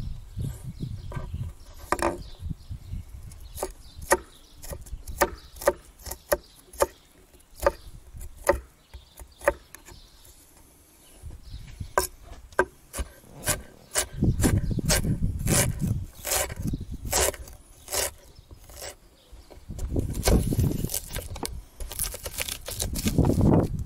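Cleaver chopping ginger into small cubes on a wooden end-grain cutting board: irregular sharp knocks of the blade on the wood, often a few a second, with pauses. Stretches of low rumble come in twice in the second half.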